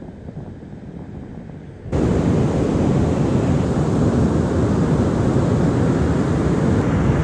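Wind buffeting the microphone over the steady rush of heavy ocean surf. It cuts in suddenly and loudly about two seconds in, after a quieter stretch.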